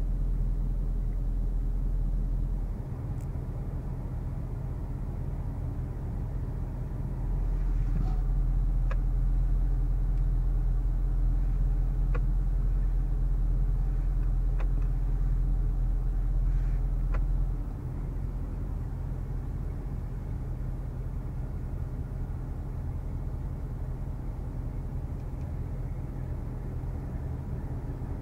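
The 2014 Range Rover Sport's supercharged V8 idling, heard as a steady low hum inside the cabin. It grows louder about seven seconds in and drops back about eighteen seconds in. A few faint clicks come in the middle as the Terrain Response dial and console buttons are worked.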